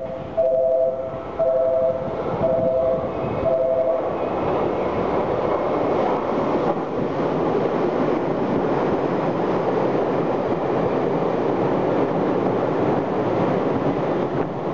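Tokyu 5050 series electric train passing through the station at speed, a steady loud rush of wheel and running noise that builds up about four seconds in. At the start a two-tone beep repeats about once a second, stopping as the train noise takes over.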